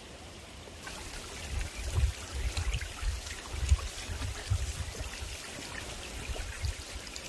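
Shallow rocky creek trickling steadily, with irregular low thuds and light splashes of footsteps wading through the water; the steps stop shortly before the end.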